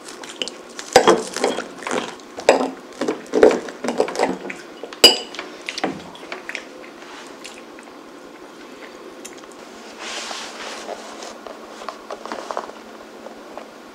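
Knife and fork cutting through a slice of whole-wheat bread on a white ceramic plate: the cutlery scrapes and clinks against the plate in quick strokes, with one sharp ringing clink about five seconds in. After that it goes quieter, with soft rustling handling noise in the last few seconds.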